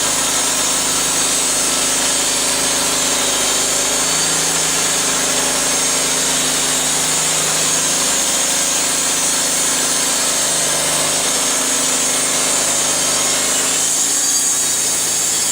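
Homemade band sawmill with a 15-horsepower engine running steadily as its blade cuts through a white ash log, a constant engine hum under a loud, high cutting hiss. The low engine note drops away near the end.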